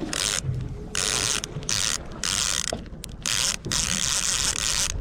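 Fishing reel clicking in repeated bursts while a hooked salmon is played toward the boat.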